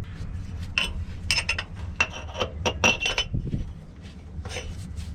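Metal parts and hand tools clinking and scraping together while a cleaned filter is refitted, a quick series of sharp ringing clicks over about two seconds and a couple more near the end, over a steady low hum.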